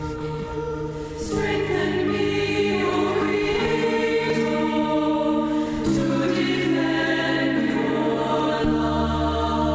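Choir singing slow, sustained chords, the harmony shifting every few seconds, with a deep bass note joining near the end.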